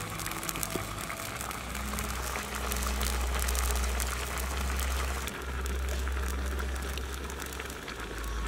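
Soup bubbling at a boil in a wok over a wood fire, with fine crackling and fizzing, under low background music.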